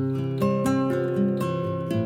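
Background music: acoustic guitar playing plucked notes at a steady pace.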